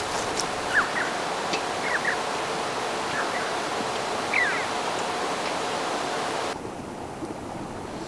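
Steady outdoor background hiss with a few faint short chirps, the clearest a falling chirp a little past four seconds in. About six and a half seconds in the hiss drops suddenly to a quieter level.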